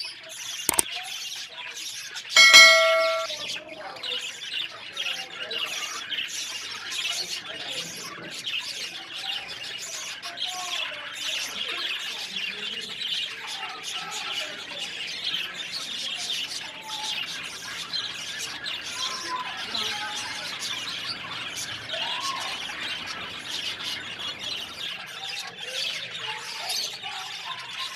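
Many small birds chirping steadily in a dense chorus, with one loud, short ringing sound about two and a half seconds in.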